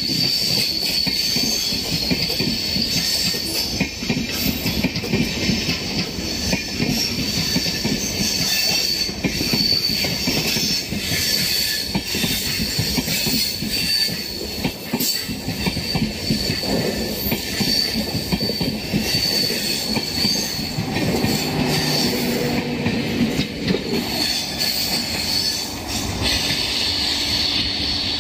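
Train wheels running on the rails as a train passes, clattering, with a steady high-pitched wheel squeal.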